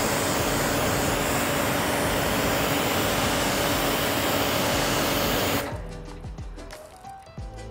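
Electric pressure washer running with a loud, steady spray hiss over a motor hum. It cuts off abruptly about five and a half seconds in, leaving background music.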